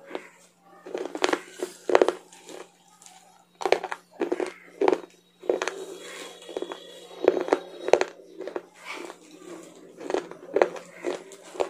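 Close-up chewing of crisp, crunchy food, with irregular crunches coming a few times a second over a steady low hum.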